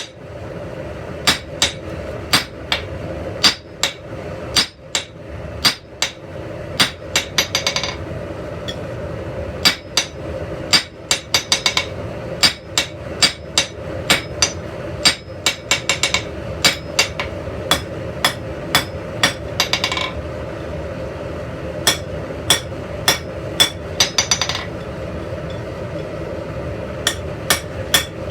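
Blacksmith's hammer forging steel on an anvil: sharp single blows about one to two a second, broken by several quick runs of light ringing taps, over a steady hum.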